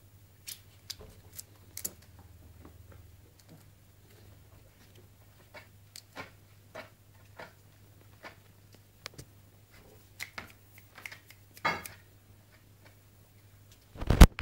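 Weimaraner puppies scuffling and play-wrestling on soft bedding: scattered, irregular small clicks and scuffs, with a sharp, much louder knock near the end.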